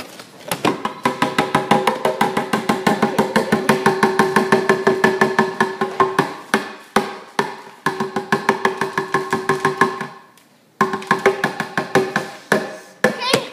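Background music with a fast, even, clicking beat over steady pitched notes; it cuts out briefly about ten seconds in, then starts again.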